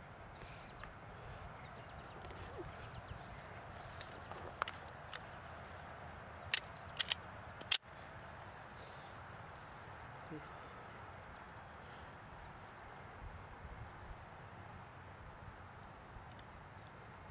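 Crickets chirring steadily, with four sharp cracks in quick succession about halfway through.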